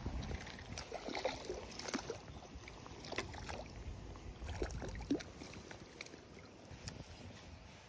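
Water splashing close by, mixed with scattered clicks and handling sounds, over a low rumble that fades after about five seconds.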